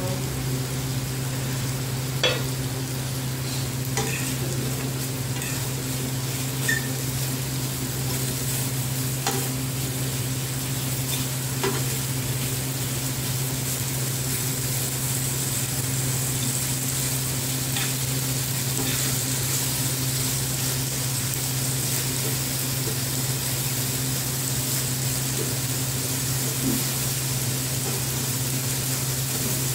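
Chicken pieces sizzling in hot oil in an aluminium frying pan, with a steady hiss. A metal utensil turning the pieces clinks against the pan now and then, and a steady low hum runs underneath.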